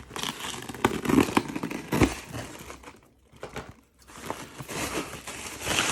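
Packaging crinkling and rustling as a taped package is pulled open and handled, with scattered sharp clicks and knocks. It falls briefly quiet about three seconds in, then the rustling resumes.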